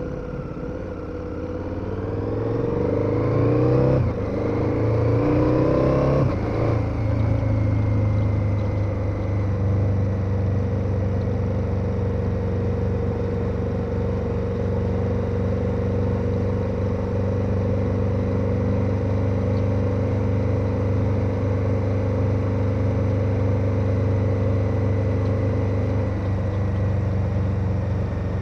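KTM 1290 Super Adventure's V-twin engine accelerating hard, its pitch climbing, dropping at a gear change about four seconds in, climbing again and shifting once more a couple of seconds later. It then holds a steady note at cruising speed.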